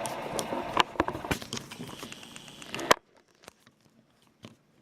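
Scattered small metallic clicks and taps of a screwdriver working the side plate screws into the frame of an 1879 Reichsrevolver, over a light hiss that cuts off suddenly about three seconds in, leaving only faint clicks.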